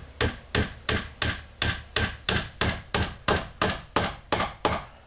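Hammer driving an 8d galvanized nail into a wooden fence stake: about fifteen steady blows, roughly three a second, stopping shortly before the end.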